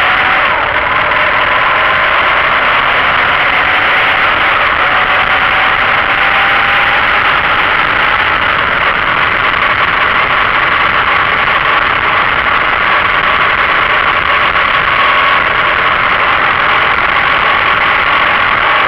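Steady rush of wind over a motorcycle-mounted camera at road speed, with the motorcycle's engine note faint underneath, rising slowly in pitch over the first several seconds.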